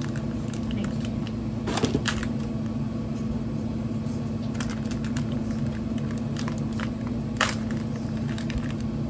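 Crinkling and crackling of a clear plastic snack wrapper being opened and handled, with sharper crackles about two seconds in and again later on, over a steady low hum.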